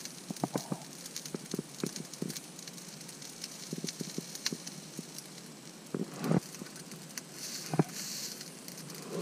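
Rice crackling in a small pan over a portable gas stove's burner, with a steady hiss and scattered ticks. Two louder knocks of a spatula against the pan come later on.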